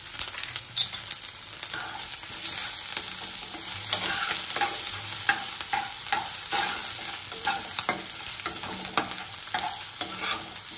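Hot oil sizzling as green chillies, ginger paste and crushed cumin, coriander and fennel seeds fry in a granite-coated kadai, the tempering for a samosa filling. A metal spatula stirs and scrapes through them in repeated strokes, which come more often from about four seconds in.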